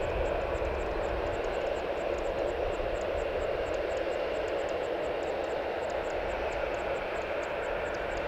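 Steady drone of parked airliners' auxiliary power units running with the engines off, even and unchanging. Above it is a faint, fast, high ticking, about five a second.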